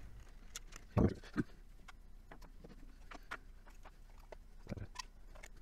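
Plastic parts of a battery speaker and an Echo Dot being handled: a sharp knock about a second in, a second lighter one just after, then scattered light clicks and taps.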